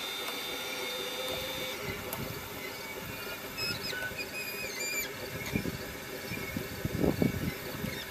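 Radio-controlled 1/12-scale Caterpillar 345D excavator model working its tracks up a packed clay slope. A steady high motor whine stops about a second and a half in, followed by scraping and clicking from the tracks and drive. Short high squeaks come around the middle, and the model is struggling to climb.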